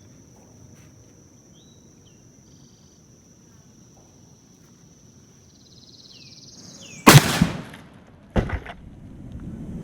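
A rifle shot rings out about seven seconds in, sharp and very loud, with a short echoing tail. A second, weaker bang follows about a second and a half later. Before the shot, birds chirp over a steady high-pitched insect drone.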